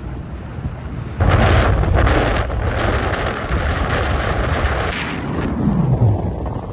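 Wind buffeting the microphone on a moving motorboat, over the rush of the boat's engine and water. The buffeting jumps up sharply about a second in and eases off about five seconds in.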